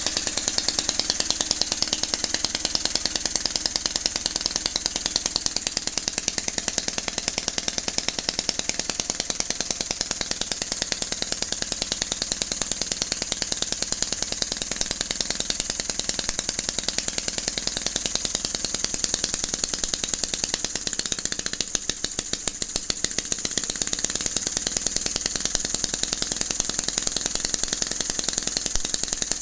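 Webster miniature petrol engine with magneto ignition running steadily, firing in rapid, even, sharp beats.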